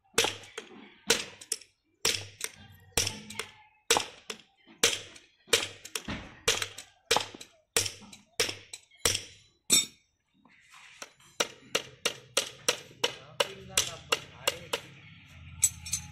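Hammer blows driving nails through a metal shoe into a water buffalo's cloven hoof: sharp strikes about one to two a second. After a short pause near the middle they turn quicker and lighter, about three taps a second.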